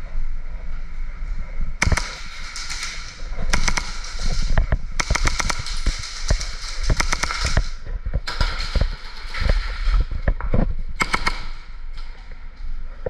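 Airsoft guns firing in rapid strings of sharp pops: five or six bursts of fast shots over about ten seconds, the longest near the middle.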